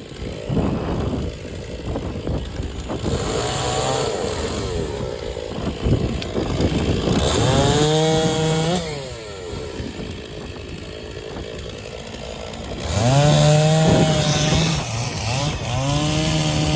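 Stihl MS460 two-stroke chainsaw bucking an elm log. It revs up to high speed about halfway through and again near the end, and runs slower in between.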